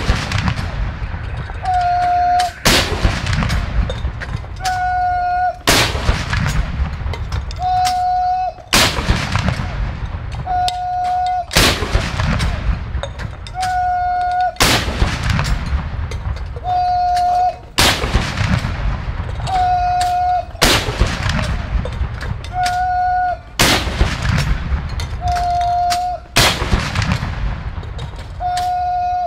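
WWII-era M5 3-inch guns firing 75mm blank rounds of black powder in a gun salute, one shot about every three seconds. Each boom trails off into a long rumbling echo, and a short steady tone sounds just before each shot.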